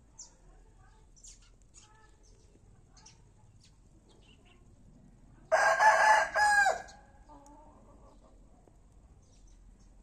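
A rooster crows once about halfway through: a loud pitched call of a little over a second with a short break near its end. Before it there is quiet outdoor background with a few faint bird chirps.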